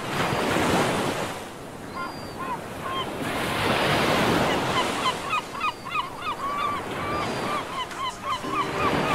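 Sea wash and waves, with a long run of short, hooked chirping calls, two or three a second, starting about two seconds in.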